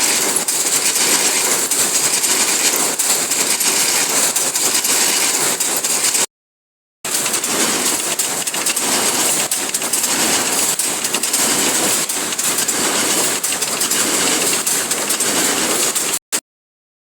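Sewing machine running fast, a steady rapid clatter of the needle mechanism, cutting out to silence briefly about six seconds in and again near the end.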